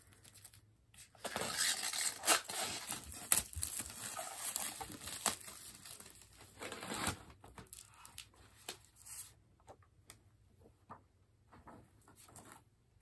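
Plastic shrink wrap being torn and peeled off a hardcover book, crinkling and crackling for several seconds. After that come lighter, sparser rustles as the book is opened and handled.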